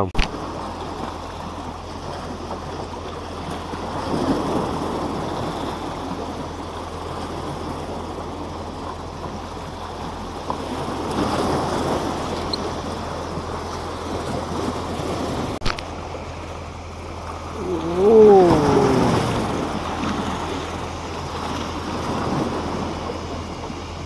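Small sea waves washing and splashing against breakwater rocks, with wind on the microphone. About eighteen seconds in, a short wavering call that dips and rises in pitch stands out above the surf.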